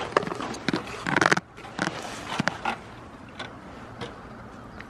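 A goat chewing and nibbling close to the microphone: irregular crunching and clicking, thickest in the first second and a half.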